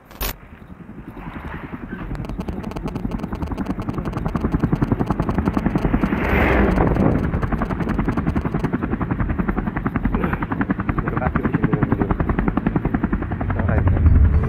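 Motorcycle engine running while riding along the road, with rapid, even pulsing that grows louder over the first few seconds. A brief louder rush of noise comes about six seconds in.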